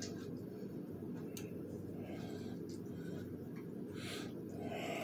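Steady low room hum, with a few faint clicks and a soft hiss about four seconds in.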